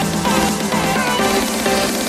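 Electronic dance music with synth melodies and a steady beat.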